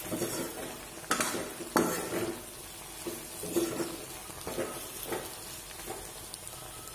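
Metal spatula stirring and scraping okra and sliced onions around a kadai while the oil sizzles, with two sharp knocks of the spatula against the pan about one and two seconds in.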